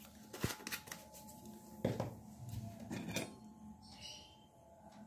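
A few light clinks and knocks of a small steel bowl and its lid being handled and moved on a stone countertop.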